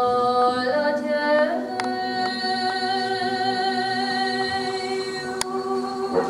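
Unaccompanied female singing of a doină de jale, a Romanian folk lament, in long, slow held notes.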